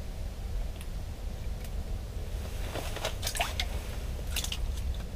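Handling noises at close range: a quick run of crackles and clicks in the last half, over a steady low rumble.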